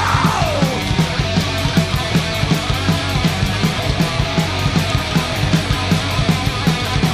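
Doom metal band playing live: distorted electric guitars and bass over fast, steady drumming, with no vocals.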